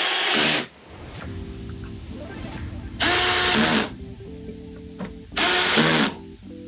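20-volt cordless drill-driver running in three short bursts of under a second each, its motor pitch rising and falling within each burst, with background music playing between the bursts.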